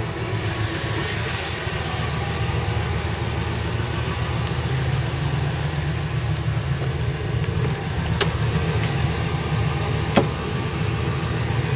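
Ford E150 van's engine idling steadily, with a couple of sharp clicks about eight and ten seconds in.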